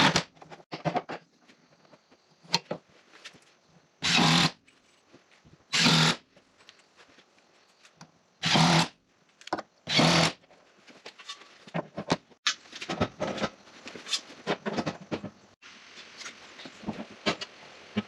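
Shelving parts being handled and fitted: five short, loud scrapes or clatters spread over the first ten seconds, then many smaller clicks and taps.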